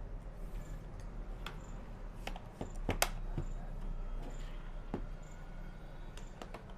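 Scattered sharp plastic clicks and taps of a Lenovo V310 laptop's bottom cover being pressed down, its clips snapping into place, over a low steady hum.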